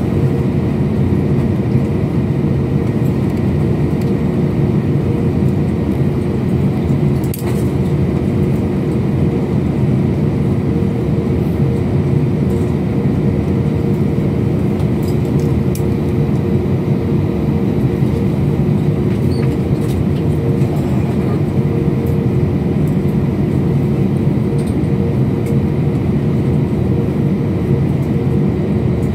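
Airliner cabin noise: the jet engines and airflow make a steady, loud drone with a faint hum, heard from inside the passenger cabin. A single faint click sounds about seven seconds in.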